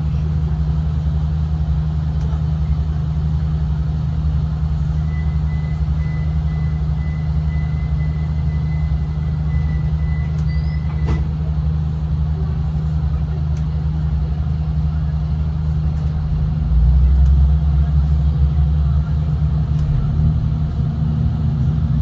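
Steady running noise of a V/Line diesel train heard from inside the carriage: a constant low engine drone with rail and wheel rumble, swelling louder for a couple of seconds about 17 seconds in. A faint thin high tone rings for several seconds near the middle.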